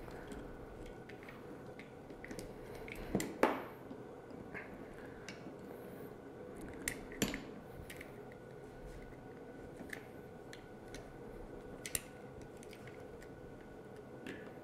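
Scattered light metallic clicks and knocks of a hex key and steel parts as set screws are turned and the tracking shaft is adjusted on a knife grinder's tracking assembly. The loudest knocks come about three and a half, seven and twelve seconds in, over a faint steady hum.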